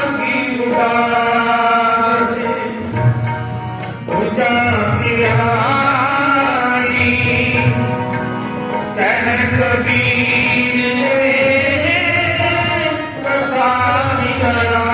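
Devotional music: tabla keeping the beat under sustained melodic notes and a voice singing long, drawn-out notes without clear words.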